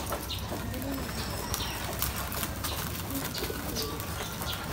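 Pigeons cooing, with the crackle of plastic wrap and packing tape as scissors cut into a wrapped box.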